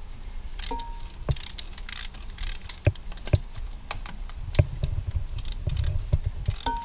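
Hand socket ratchet clicking in short, uneven strokes as it works a fastener, with scattered metal taps and knocks.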